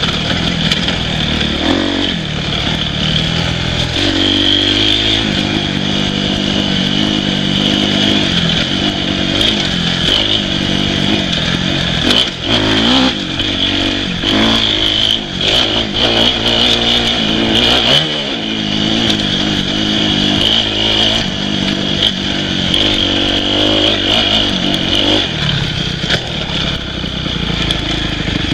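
Dirt bike engine running on the move, its pitch rising and falling as the throttle opens and closes. Clatter and knocks from the bike over rough ground come through the middle.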